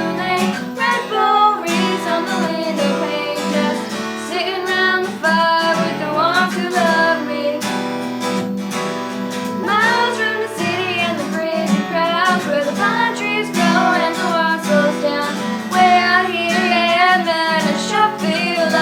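Two young girls singing a country Christmas song together over strummed acoustic guitar accompaniment.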